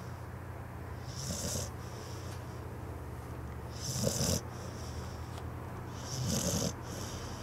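A sleeping dog snoring: three snores, each about half a second long and about two and a half seconds apart, over a steady low hum.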